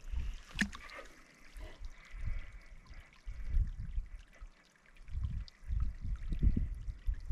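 Hydrophone being lowered and placed in a mountain spring: irregular low rumbles and knocks of the water and the handled hydrophone, with faint trickling water and a few sharp clicks.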